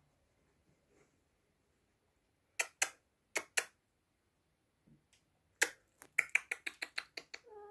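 Sharp, dry clicks made by a person trying to catch the kittens' attention: two pairs, then a single click, then a quick run of about eight a second near the end.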